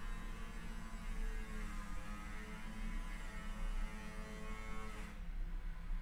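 Angle grinder running outside, heard muffled through a closed window: a steady motor whine over a low hum, its pitch wavering slightly. About five seconds in the higher part of the sound drops away, leaving the low hum.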